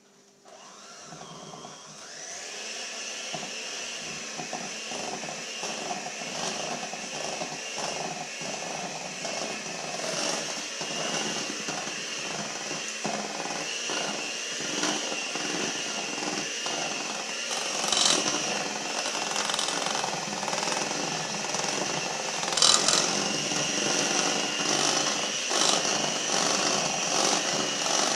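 Electric mixer beating frosting made of confectioner's sugar, vanilla and milk. It starts about a second in and builds up over the next couple of seconds, then runs steadily with a whine and occasional sharper clatters.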